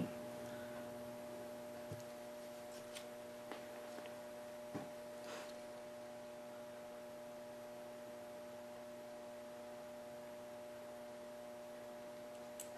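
Steady electrical hum of several tones, with a few faint clicks about two to five seconds in and once near the end, as a pistol's aluminum trigger and trigger bar are handled and fitted together by hand.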